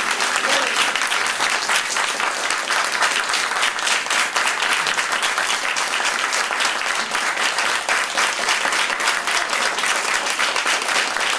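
Small audience applauding steadily, a dense patter of hand claps.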